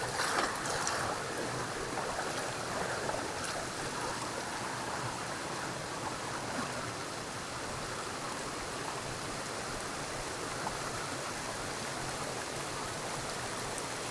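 A shallow rocky river rushing steadily over small cascades. In the first second, water poured out of a metal pot splashes onto the rock.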